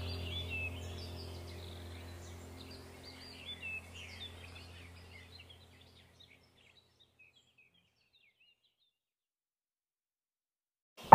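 Ambient background track of birds chirping over a low steady drone, fading out to silence about six seconds in.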